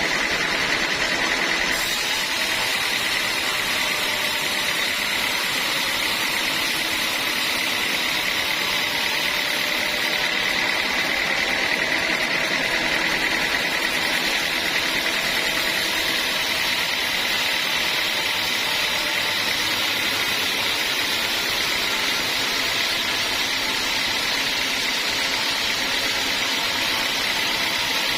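Sawmill saw running steadily: an even machine noise with a constant high whine, unchanging throughout.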